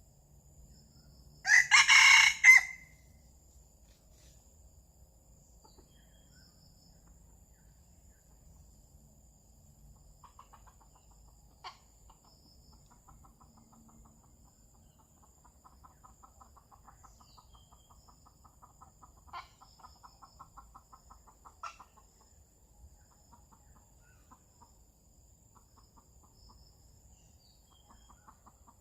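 A red junglefowl cock crows once, loud and short, about two seconds in. Faint rapid clucking follows later, with a few light clicks.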